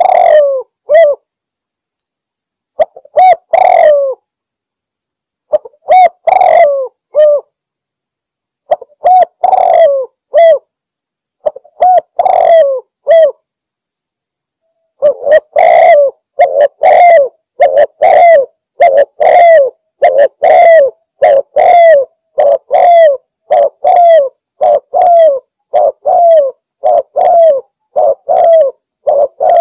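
Spotted dove (tekukur) cooing loudly in short repeated phrases a few seconds apart, then, after a brief pause about halfway through, in an unbroken run of coos. A male calling to challenge a rival.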